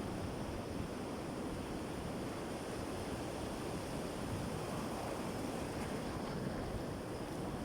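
Sea surf washing steadily onto the shore, an even rush of water with no single wave standing out.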